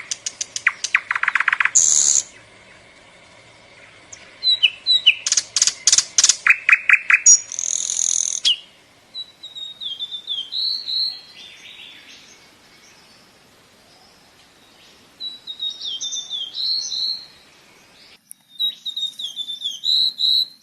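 Songbirds chirping and singing. The first half has fast runs of repeated sharp chirps, several a second; after that come short bursts of quick whistled phrases, separated by quieter gaps.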